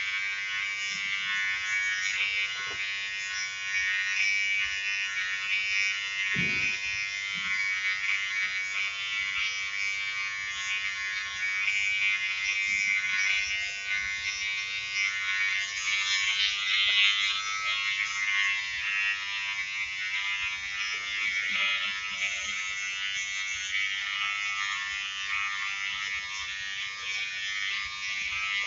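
Wahl GroomsMan Pro cordless electric trimmer running steadily with a high, even buzz. There is a brief low knock about six and a half seconds in.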